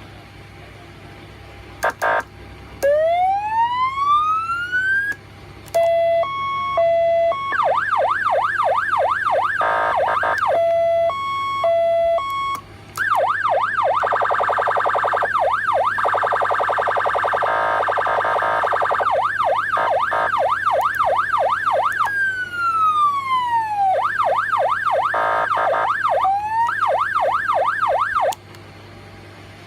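12V Premier electronic siren sound box for a motorcycle, stepping through its tones: a rising wail, a two-tone hi-lo, a fast yelp, a very rapid warble and a falling wail. It cuts off suddenly near the end.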